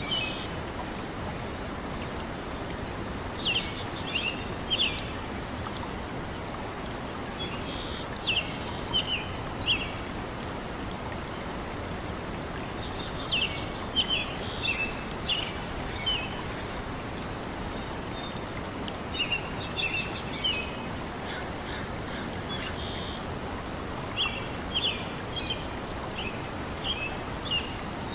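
Steady rush of flowing stream water, with a small songbird singing short bursts of high chirps every few seconds.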